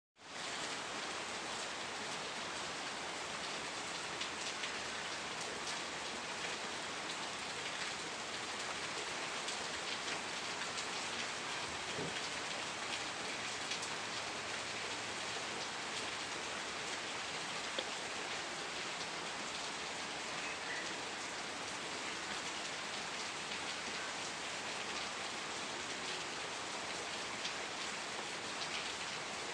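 Steady rain falling: an even hiss with scattered single drops ticking through it, fading in at the very start.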